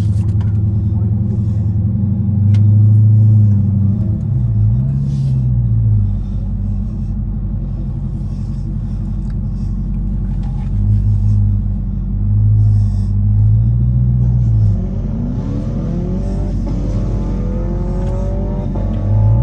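Dodge Charger Hellcat's supercharged V8 idling with a steady low rumble, revved up and back down several times, about four seconds in and again between about eleven and fourteen seconds in. In the last few seconds its pitch climbs steadily as the car accelerates.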